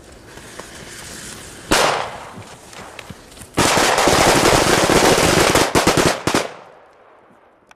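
About a hundred matchcrackers going off together: a hiss builds, a single sharp bang comes under two seconds in, then a dense crackle of many rapid bangs runs for about three seconds and stops suddenly.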